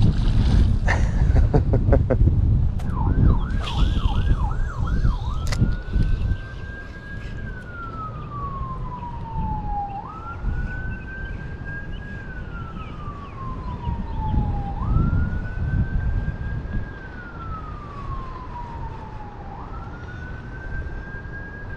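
Electronic emergency-vehicle siren: a quick yelp for a couple of seconds, then a slow wail that rises and falls about every five seconds. A loud low rumble covers the first six seconds.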